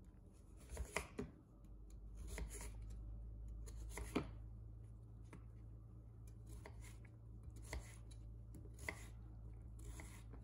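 Chef's knife slicing through a raw celery root and knocking on an end-grain wooden cutting board, one crisp cut every one to two seconds, the loudest about four seconds in.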